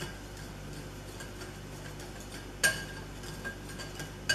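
Wire whisk stirring dry flour mix in a ceramic mixing bowl: quiet stirring with two sharp clinks of the whisk against the bowl, one about two-thirds of the way through and one at the end.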